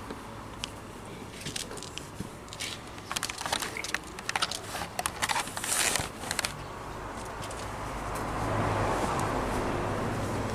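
Clicks, knocks and rattles of a Toyota Sienna minivan's seat headrest and seat plastics being gripped and worked by hand. In the last few seconds a steady hissing noise with a low hum rises under it.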